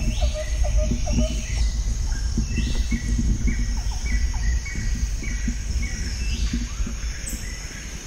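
Birds calling in woodland, one repeating a short note two or three times a second, with a few longer calls over it, all above a steady low rumble.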